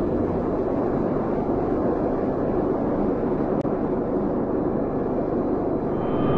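Steady jet-engine roar, a dense, even rush of engine noise used as the sound effect for a hypersonic airliner in flight.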